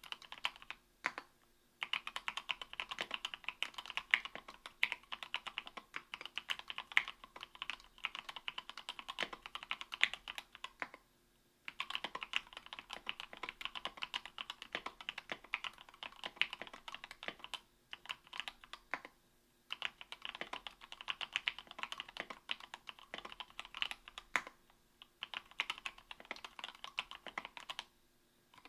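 Typing on an Octagon V3 mechanical keyboard with lubed Gateron Milky Yellow 50 g linear switches (Krytox 205g0) on an aluminium plate: fast runs of key clicks broken by short pauses every several seconds.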